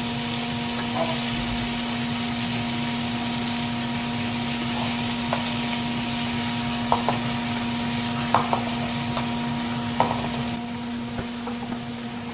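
Napa cabbage stems sizzling in hot oil as they are stir-fried, with a spatula clacking against the pan several times. The sizzle eases a little near the end. A steady hum runs underneath.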